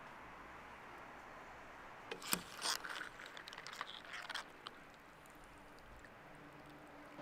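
Steady hiss of a working kitchen, with a short run of clattering and clinking about two seconds in that lasts around two seconds.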